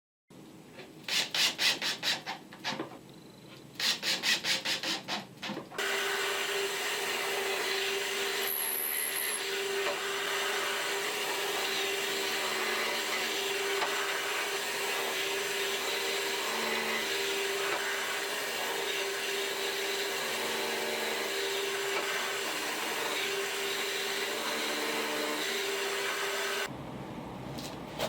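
Woodworking tool sounds: two runs of quick strokes on wood, about four a second, then a power tool running steadily with a constant hum for about twenty seconds, stopping near the end.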